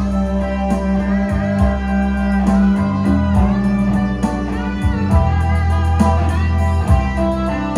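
Instrumental music led by a guitar melody with bending notes, over a sustained bass line.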